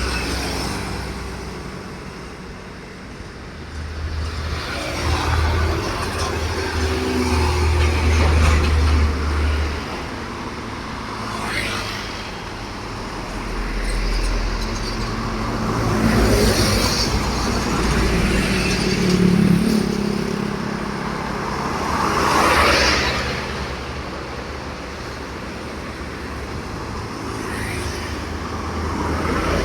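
Road traffic: several vehicles pass one after another over a steady low engine rumble, each pass rising and falling in loudness.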